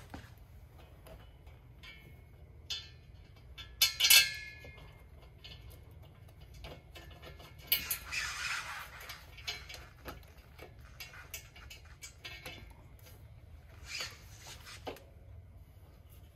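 Small metal clinks and rattles of bolts, washers and nuts being handled and fitted at an exhaust pipe flange, with a louder metallic clatter about four seconds in and a short scraping noise a little later.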